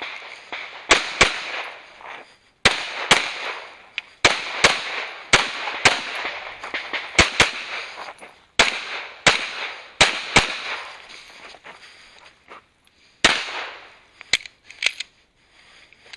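Semi-automatic pistol shots, about fifteen, fired mostly in quick pairs with an echo after each, and a pause of a few seconds before a last shot about 13 seconds in. A few lighter cracks follow near the end.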